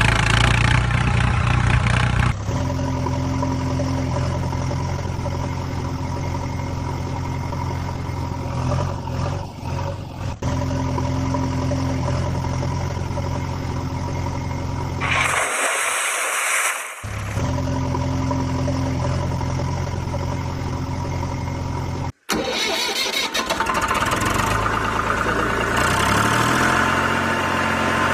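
Engine sound, a steady low idling drone. It gives way to a short hiss about halfway through, stops briefly near the end, then runs on with a different tone.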